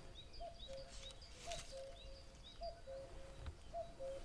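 A bird repeating a two-note call about once a second, a higher note followed by a lower one, with faint chirps of small birds higher up.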